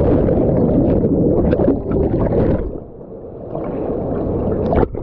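Water churning and gurgling right after a jump into a waterfall pool. The rushing, splashing sound is loud for about two and a half seconds, drops away suddenly, then builds again, with a sharp splash near the end.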